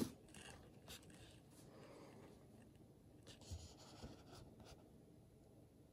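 Near silence: quiet room tone with a few faint scattered clicks and rustles.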